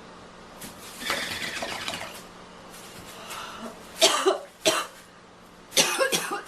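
A girl coughing: a long noisy breath about a second in, two sharp coughs around four seconds in, then a quick run of several coughs near the end.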